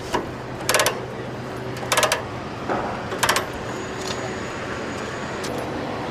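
Steel tie-down chains and a chain tightener clinking and rattling in three short bursts and a few fainter clicks, over a truck engine idling steadily.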